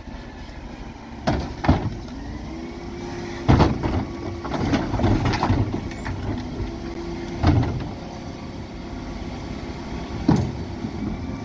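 Dennis Elite 6 refuse truck running at the kerb while its Terberg OmniDe bin lift works. A steady hydraulic whine runs from a few seconds in until past the middle as wheelie bins are raised and tipped into the hopper. Several loud clanks and bangs come as the plastic bins knock against the lift and the bodywork.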